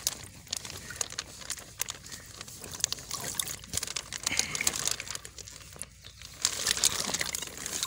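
Thin plastic bag crinkling and water sloshing inside it as a hand reaches into the bag of catfish fingerlings. Irregular crackles throughout, busier and louder near the end.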